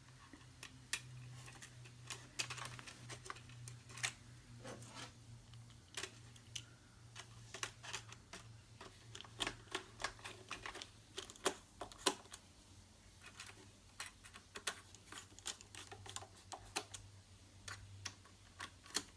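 Scattered small clicks and taps, irregular and a few seconds apart at most, from hands and a Phillips screwdriver working on the iMac's RAM access cover and its screws, with a low steady hum underneath.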